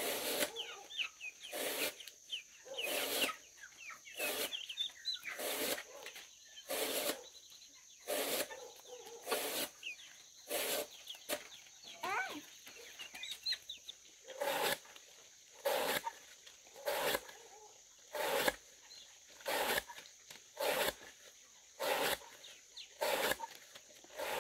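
A chick peeping in short high chirps, over a steady series of sharp knocks about every 1.2 seconds, like chopping or pounding.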